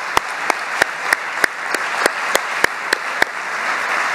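Audience applauding, with one person's claps loud and close at about three a second that stop a little after three seconds in while the rest of the applause carries on.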